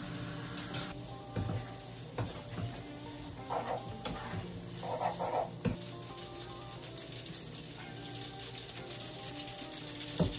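Spaghetti sizzling in oil in a frying pan as it is stirred with metal chopsticks, with a few sharp clicks of the utensils against the pan.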